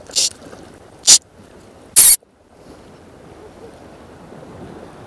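Spinning reel's drag buzzing out line in three short bursts about a second apart, the last the longest and loudest, as a hooked fish pulls on light tackle.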